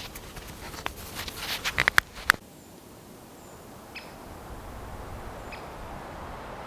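Hand work on wood in a run of scraping strokes and sharp clicks, loudest about two seconds in. It then gives way to a quieter outdoor background with two faint short bird chirps.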